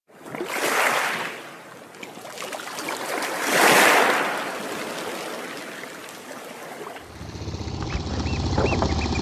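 Two whooshing, bubbling underwater sound effects swell and fade. About seven seconds in a small boat's engine idles low, and soon oystercatchers pipe repeatedly in short high calls.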